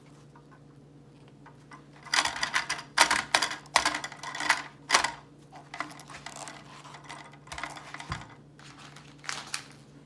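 Plastic toy packaging and parts being handled: a quick flurry of rustling and clattering for about three seconds, then a few lighter rattles, with a faint steady hum underneath.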